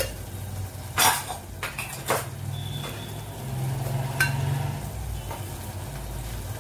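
A few metal clinks and knocks of kitchen utensils against a steel cooking pot, the loudest about a second in, over a low steady hum.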